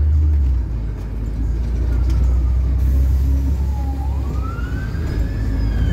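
Steady low rumble of a city bus heard from inside its cabin, with a siren in the background that wails slowly down and then back up, starting about two seconds in.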